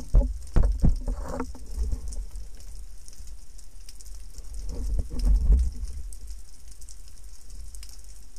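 Underwater sound picked up through a speargun-mounted camera housing: a few sharp knocks in the first second from handling the gun and the speared barracuda, water rushing around a second in and again around five seconds in, over a steady fine crackle.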